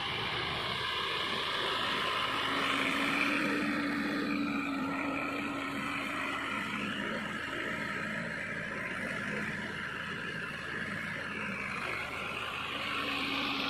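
Sonalika DI 60 tractor's diesel engine running steadily under load while working a rotavator through flooded paddy mud.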